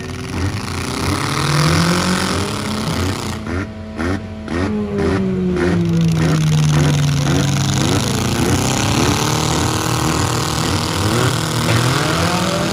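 Engines of several four-cylinder demolition derby cars running and revving together, their pitch rising and falling as they accelerate and back off.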